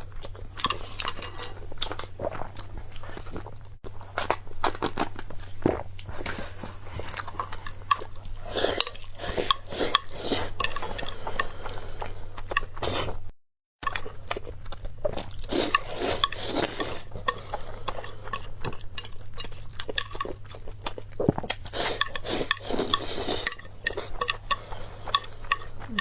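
Close-miked eating: chewing with frequent clinks and taps of utensils against a bowl, with a momentary cut to silence about halfway through.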